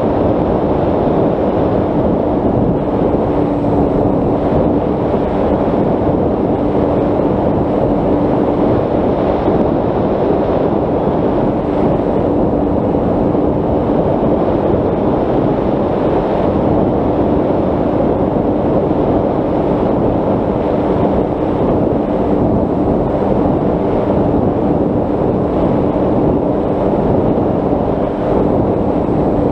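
Wind rushing over the microphone of a camera mounted on a Bixler 3 RC plane in flight, over the steady drone of its brushless electric motor and 10x7 propeller. The pitch holds even, as at constant cruise throttle.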